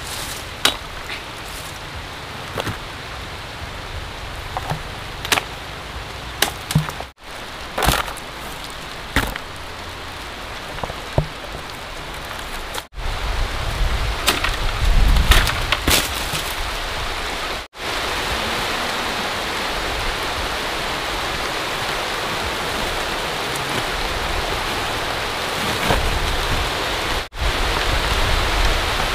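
Heavy rain falling, a steady hiss, with scattered sharp knocks over the first half.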